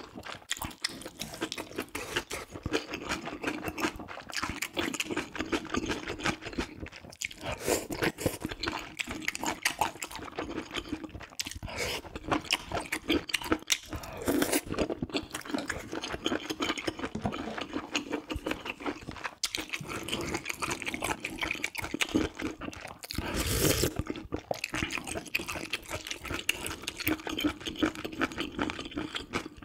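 Close-miked eating: a person chewing spicy ramyeon noodles and kimchi, a continuous run of wet chewing with small crunches and slurps, and a louder, longer burst about 23 seconds in.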